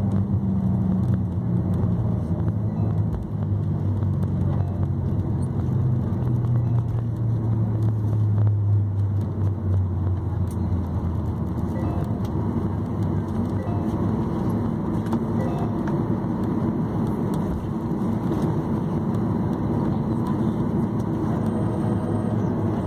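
Inside the cabin of a jetliner decelerating on the runway after touchdown. The jet engines' drone falls in pitch over the first ten seconds or so as the thrust winds down, then settles into a steady low rumble of the rollout.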